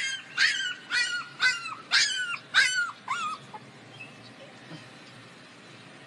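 Puppy yelping: a rapid series of high cries, each falling in pitch, about two a second, that stop a little over three seconds in.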